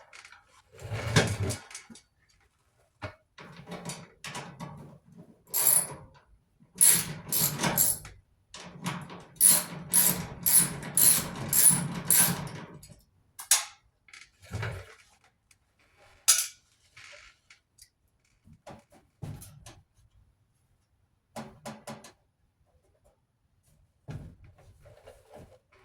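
Hand tools and sheet-metal parts of a clothes dryer being worked on: scattered clanks and clicks, with a run of quick repeated metallic taps or clinks in the middle.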